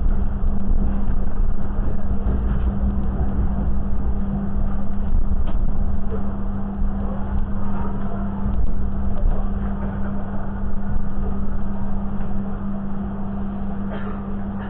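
Passenger train running, heard from inside a stainless-steel coach: a steady low rumble with a constant hum and a few faint clicks.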